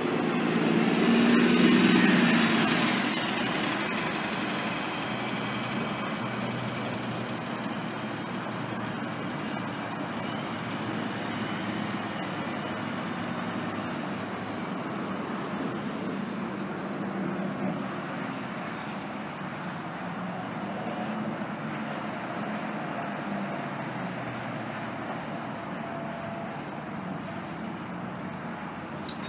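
Diesel city transit bus pulling away from the stop, its engine loudest about two seconds in with a faint high whine. After that comes a steady drone of bus engines running and moving through the terminal.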